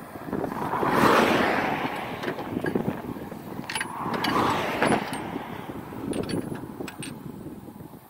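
Two road vehicles passing on the highway, the louder one about a second in and another around four and a half seconds, each building and fading. Light metallic clicks of hand tools on the engine come in between them.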